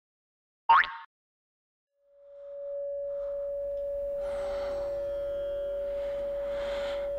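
A short, sharp rising zap of a sound effect about a second in, then silence, then a steady pure ringing tone fading in from about two seconds and holding, with soft ambient music building over it.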